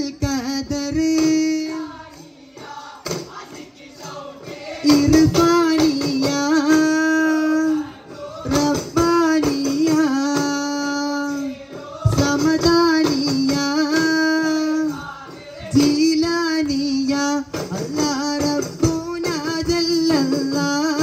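Arabana muttu: sung phrases with long held notes, pausing every few seconds, over the rhythmic beating of several arabana frame drums struck by hand.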